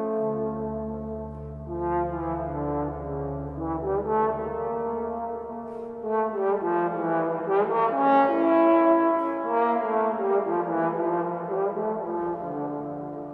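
Trombone and organ playing a slow piece: sustained trombone notes over held organ chords, with a deep organ bass note held through the first few seconds. The music dies away near the end.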